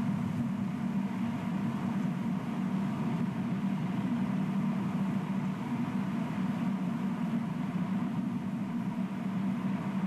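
Steady low hum, even and unchanging, with a faint higher tone above it.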